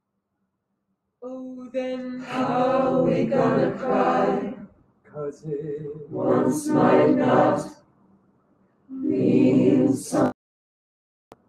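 A cappella group of mixed male and female voices singing in chords without instruments, in three phrases separated by silent gaps, the last phrase cutting off abruptly. A single click near the end.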